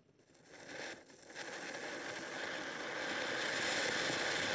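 Flower pot (ground fountain firework) going off: a brief faint hiss from the burning fuse, then from about a second and a half in a steady hiss as it sprays sparks, growing louder.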